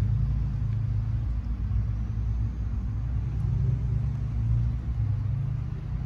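Kitten purring while being stroked on the head and chin, a steady low rumble close to the microphone.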